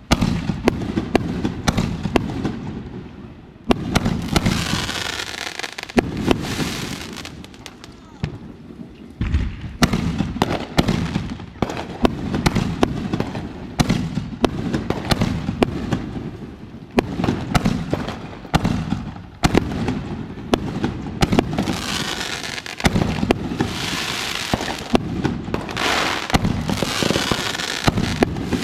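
Fireworks going off in a rapid series of sharp bangs, with stretches of dense crackling between them.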